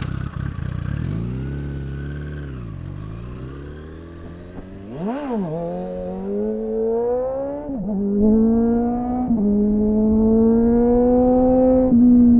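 2001 Suzuki GSF600 Bandit's inline-four through an aftermarket SC-Project-style exhaust. The revs dip and recover, there is a quick throttle blip about five seconds in, then the bike accelerates through the gears: pitch climbs and drops sharply at two upshifts before a long pull.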